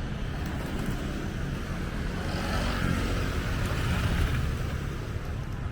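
A vehicle passes by: its noise builds, peaks about three to four seconds in, and fades, over a steady low city rumble.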